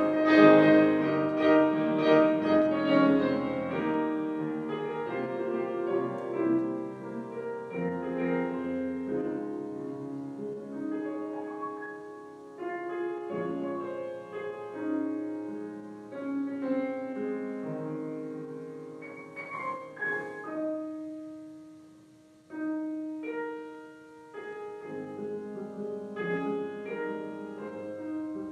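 Grand piano playing held chords and a melody line, notes ringing and decaying. About 22 seconds in the sound dies away almost completely before the next phrase begins.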